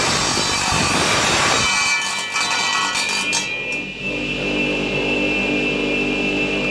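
Wet tile saw's diamond blade grinding through the metal case of a car stereo. About two seconds in the blade leaves the cut and the saw runs free with a steady high whine.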